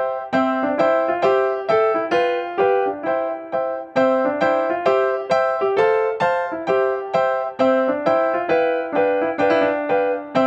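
Background music: a piano or electric-piano melody of evenly struck notes, about three a second.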